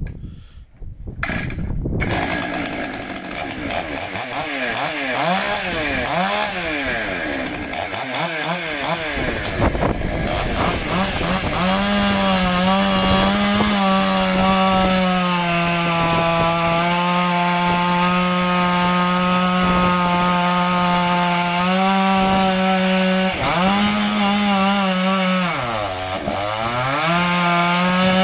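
Stihl MS 661 C two-stroke chainsaw cutting through firewood logs. Its pitch wanders up and down for the first several seconds, then holds steady and high at full throttle in the cut, with a brief deep drop in revs near the end before it climbs back.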